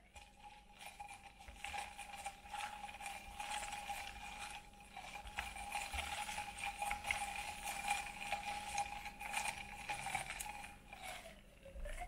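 A glass straw stirring crushed ice in a glass of sparkling fruit drink: dense clinking and rattling of ice against glass, with a steady ringing tone held throughout the stirring.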